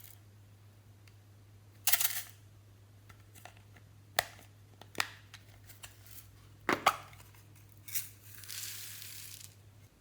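Glossy slime being squished and handled: a series of sharp wet clicks and pops, with a short hissing crackle near the end, over a steady low hum.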